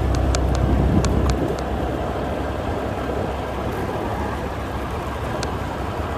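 Vehicle travelling along a rough road: a steady rumble of engine and road noise. The deep rumble eases about a second in, and a few sharp knocks come through.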